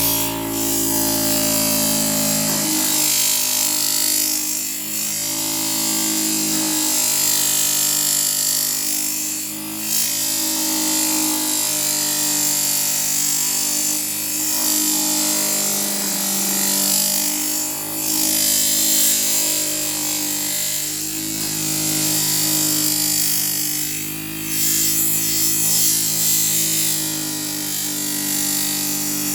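Electric knife-grinding machine running with a kitchen knife blade held to its abrasive paper. A steady motor hum, whose pitch shifts a little under load, sits under a high grinding hiss that swells and eases every few seconds as the blade is worked along.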